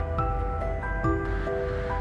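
Calm instrumental background music: sustained notes changing every quarter to half second, over a low steady rumble.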